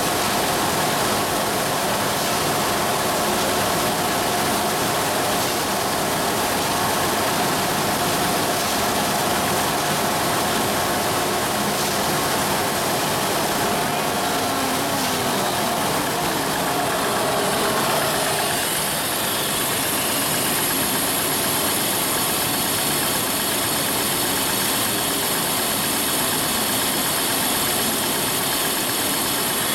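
Automatic high-speed OPP labeling machine for round bottles running steadily: dense, even mechanical noise with a held tone. About eighteen seconds in, the tone fades and a high thin whine takes over.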